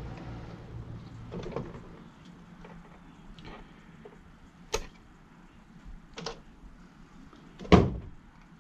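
Scattered clicks and knocks from parts and tools being handled during a repair, with one louder knock near the end. A low steady hum dies away about a second in.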